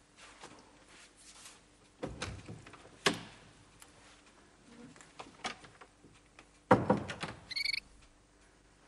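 Knocks and clicks of a wooden door being opened and handled, then shut with a heavy thud about two-thirds of the way through. A brief high ringing tone follows.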